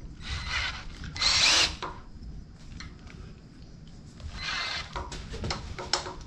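Cordless drill being fitted onto the shaft of a piston fly cutter mounted in a small-block Ford cylinder head. There are a few short bursts of drill and chuck noise, the loudest about a second and a half in and another a little past four seconds, then light clicks and knocks near the end.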